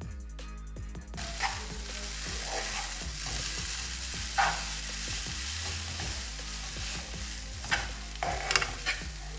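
Instant noodles sizzling in a nonstick frying pan as they are stirred and tossed in a soy-sauce mixture with a metal spoon and fork. A steady frying hiss starts about a second in, and sharp scrapes and clinks of the utensils against the pan come at intervals, with a quick cluster of them near the end.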